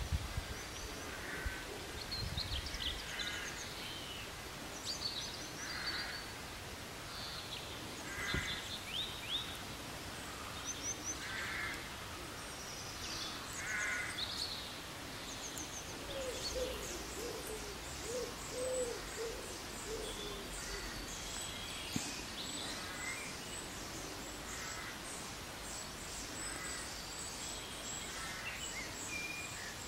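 Birds calling outdoors: short calls repeating every second or two, with higher chirps that thicken into a busy twittering in the second half. A single thump right at the start.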